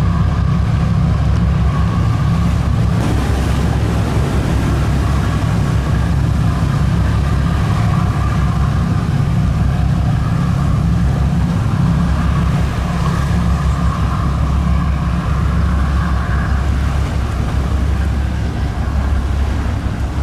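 A tugboat running fast close by: the steady low rumble of its diesel engines mixed with the rush of its bow wave and wake.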